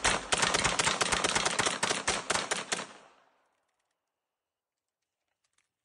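Rapid gunfire in a double magazine dump: many shots in quick succession, stopping abruptly about three seconds in.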